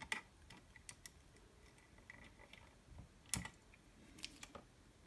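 A few faint, sharp clicks and ticks of a small screwdriver and wire working at a terminal screw while a power lead is attached; one click, about three seconds in, is louder than the rest.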